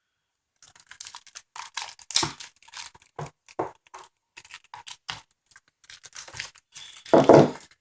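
Swiss Army knife slitting and tearing the plastic shrink wrap on a Blu-ray case: irregular scratching, clicking and tearing, with a louder burst near the end.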